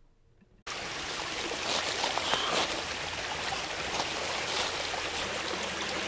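Shallow rocky creek running and babbling over stones, a steady rush of water that cuts in suddenly under a second in after near silence.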